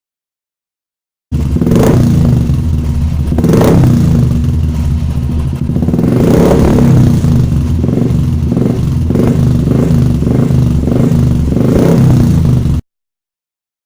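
Royal Enfield single-cylinder motorcycle engine running through an aftermarket silencer: a deep, bassy thumping idle with a few short revs. It starts abruptly about a second in and cuts off abruptly near the end.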